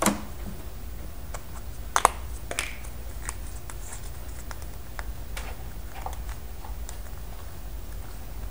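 Scattered light clicks and taps of plastic toy pieces and a Play-Doh tub being handled, the sharpest click about two seconds in, over a low steady hum.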